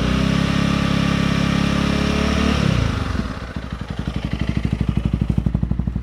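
Honda CRF300L Rally's single-cylinder four-stroke engine held steady at about 4,500 rpm through an aftermarket MotoX exhaust with its baffle removed. About two and a half seconds in the throttle is released and the revs fall back to an even, pulsing idle.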